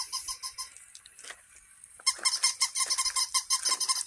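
Toy puppy giving a rapid run of high, squeaky yips, about eight a second. It stops a little under a second in and starts again about two seconds in.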